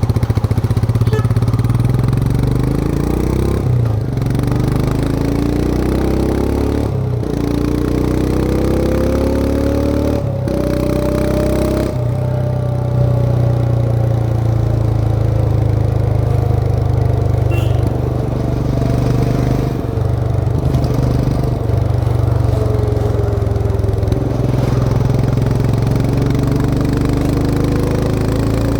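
Royal Enfield Himalayan 411's single-cylinder engine under way, its note rising and falling as the bike speeds up and eases off, with several short breaks in the note.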